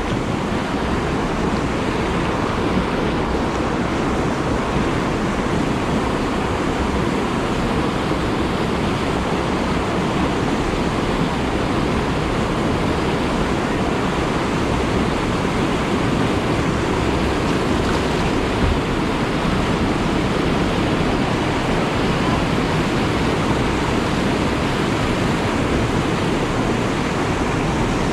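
Whitewater rapids rushing steadily, an unbroken roar of moving water.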